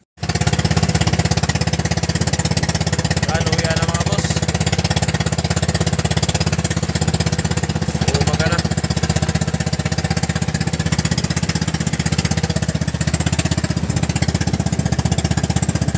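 Small engine of an outrigger pumpboat running steadily, a rapid, even pulsing with a strong low throb. Faint voices are heard under it now and then.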